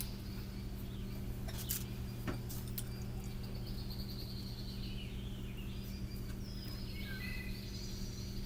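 Steady low background hum with faint, high bird-like chirps coming and going over it, and a few soft clicks.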